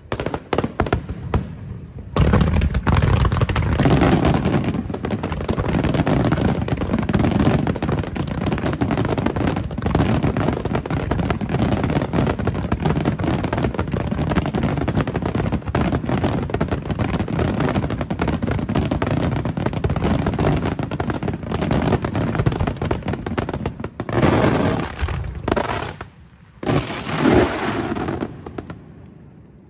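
Fireworks display finale: a dense, unbroken barrage of bangs and crackling for about twenty seconds. Two shorter last volleys follow near the end, then it dies away.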